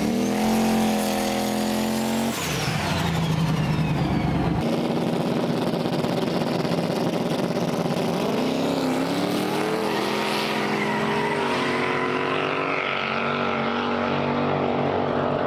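Two drag cars' engines at the start line, idling and revving, then launching and pulling away down the strip, their pitch rising as they accelerate.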